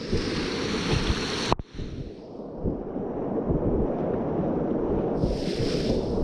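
Whitewater rapids rushing and splashing close to the microphone during a kayak run, with heavy rumbling low down and louder surges of splash near the start and again near the end. The sound cuts out sharply for a moment about a second and a half in.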